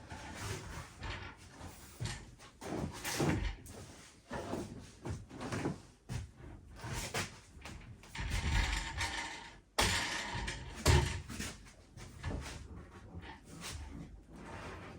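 Irregular knocks, clunks and scraping of things being handled and moved about, like doors and drawers or boards being shifted, with a longer scrape about eight seconds in and a sharp knock about eleven seconds in.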